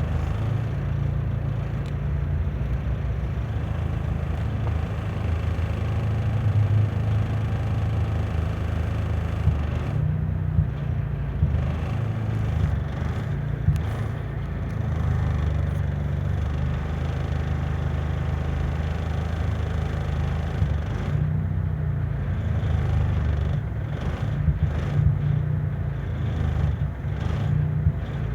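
Toyota Corolla engine running with a misfire: a steady low engine note broken by occasional uneven jumps.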